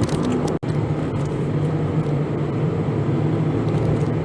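Steady road and engine noise inside a moving Toyota van's cabin, with a low steady hum. The sound drops out for an instant about half a second in.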